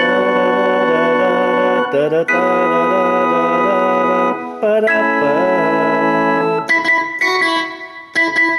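Electronic organ sound, a Korg M1 organ patch on a keyboard, playing sustained chords in B minor, each held about two seconds. Near the end it turns to shorter, choppier notes.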